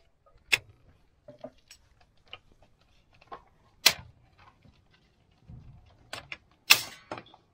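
Machete chopping firewood: several separate sharp strikes of the blade into the wood, the loudest near the end, with fainter knocks and twig cracks between.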